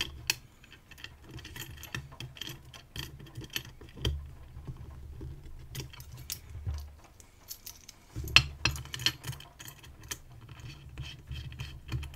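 Small metal clicks and taps from a brass disc-detainer lock cylinder and its knurled tailpiece being handled and turned with a pin tool, with rubbing of fingers on the parts.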